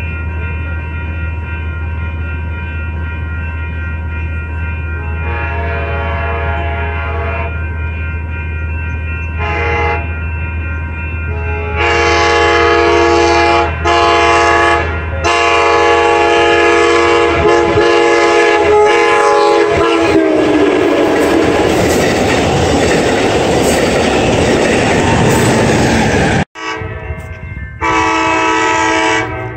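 Passenger-train locomotive air horn sounding repeated long blasts, faint at first and then loud from about twelve seconds in, dropping in pitch as the train passes at speed. The rush of the passing train follows, and another long horn blast sounds near the end.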